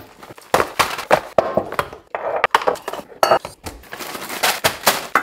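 Groceries being unpacked onto a kitchen counter: bags and packaging rustling, with jars and bottles knocking and clinking as they are set down in quick, irregular succession.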